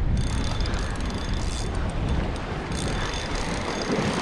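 Steady rushing noise of wind on the microphone mixed with shoreline surf, with a faint thin high whine running through it.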